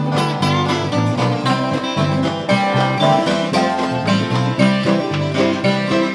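Instrumental break of a bluegrass string-band tune: banjo and guitar playing, plucked notes over a steady bass line.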